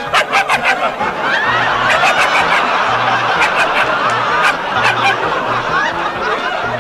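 Audience laughing, a burst of quick ha-has in the first second swelling into many voices laughing together, over brass-band background music.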